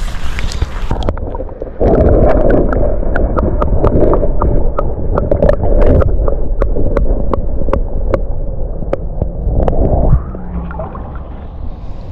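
Muffled water sloshing and gurgling as a pike is held in the water and let go, with a steady run of small sharp clicks, two or three a second, through it. The sound swells about two seconds in and drops back near the end.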